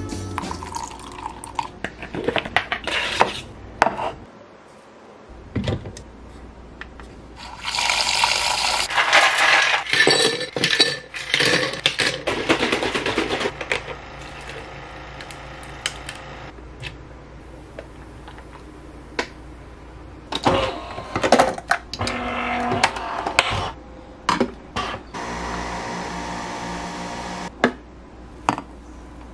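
Kitchen sounds of making an iced coffee: milk pouring, ice and glass clinking, and near the end a capsule coffee machine running steadily for a couple of seconds.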